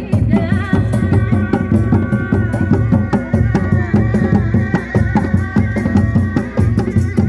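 Live kuda lumping accompaniment music: fast, steady hand-drumming with a sustained, wavering melody line above it.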